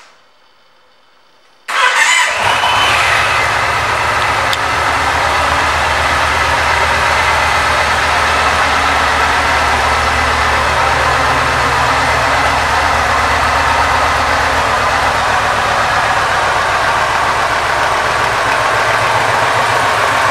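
2006 Yamaha Roadliner's 1854 cc air-cooled V-twin is started about two seconds in, catching at once. It then idles steadily with an even low pulse through its stock chrome exhaust.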